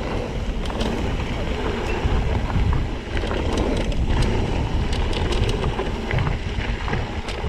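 Wind buffeting the camera microphone while a mountain bike rolls down a dirt trail, its tyres crunching and the bike rattling, with many scattered clicks and knocks from rocks and roots.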